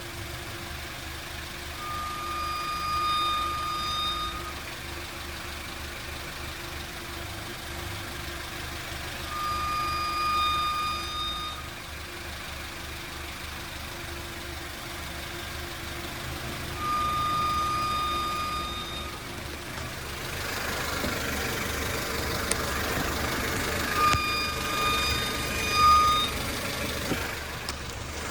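2012 Honda Civic giving a steady high-pitched whine four times, about two seconds each, over the low hum of its running engine: the whine the car makes when turning right. Broader noise rises over the last third.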